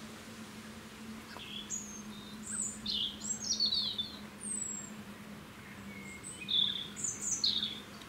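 Birds chirping: short, high, quick calls in two flurries, the first from about a second and a half in to four seconds, the second around seven seconds. A steady low hum runs underneath.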